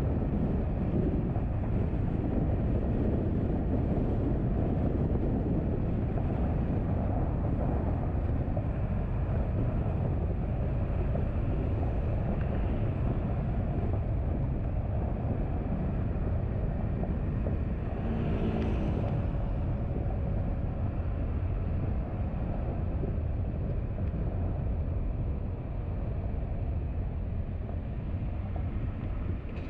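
Steady road and engine noise of a car driving at night, with a short louder passing sound about two-thirds of the way through.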